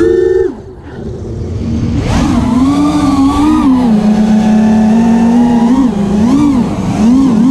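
FPV racing quadcopter's brushless motors whining, the pitch rising and falling with the throttle. The whine dips briefly about a second in, then climbs back and holds fairly steady with small wavers.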